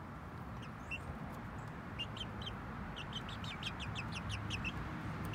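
Sapphire Gem pullets (young hens) chirping and peeping: short, high notes that begin about two seconds in and come in a quick run of several a second near the end, over a steady low hum.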